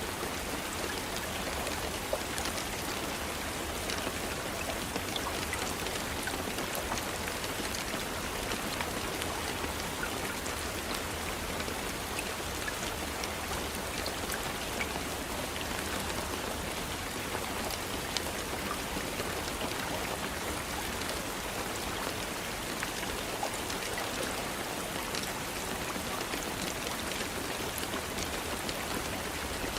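Steady rain falling, a constant hiss with many separate drops tapping on a surface.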